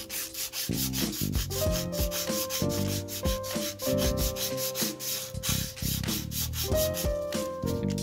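Fine-grit sandpaper rubbed by hand around the copper commutator of a Denso starter-motor armature in repeated strokes: a light sanding that cleans carbon buildup off the contacts.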